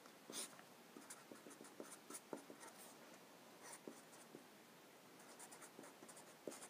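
Faint strokes and ticks of a black felt-tip marker writing on paper, in short irregular bursts as letters and symbols are drawn.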